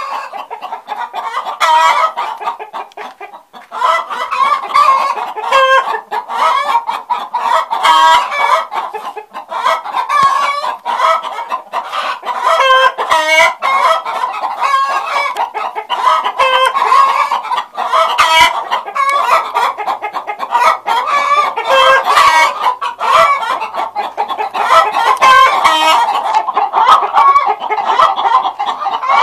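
Chickens clucking loudly and without pause, many short calls overlapping.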